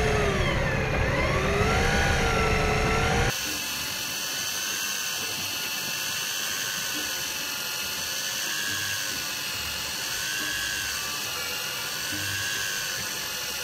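Daiwa Tanacom 1000 electric deep-drop reel's motor whining as it winds in line, its pitch wavering slowly up and down with the load. A low rumble under it drops away about three seconds in.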